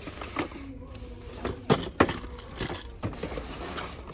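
A few sharp knocks and clicks over a steady background hiss, the loudest two close together near the middle.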